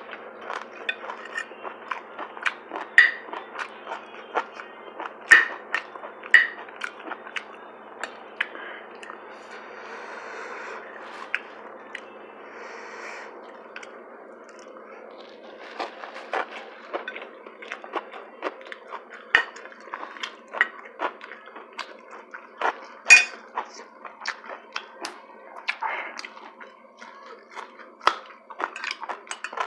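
Someone eating a meal: cutlery clinking and tapping against dishes, with chewing, as irregular sharp clicks that go on throughout and thin out a little around the middle.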